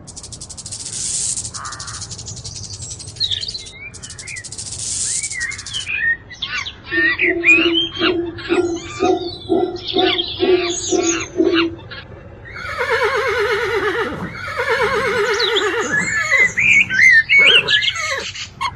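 Birds chirping and calling in a string of short clips: two hissing buzzes in the first few seconds, then quick chirps over a regular low pulsing call, then longer, harsher repeated calls.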